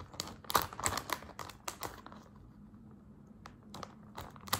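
Scissors snipping through a clear plastic bag, with crinkling of the plastic: a run of quick sharp clicks, a pause of about a second and a half partway through, then more snips near the end.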